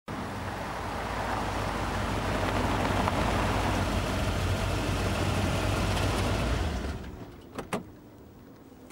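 A large sedan's engine and tyres running as the car pulls up, then the sound drops away sharply as it stops. Just after, two sharp clicks as the driver's door latch releases and the door opens.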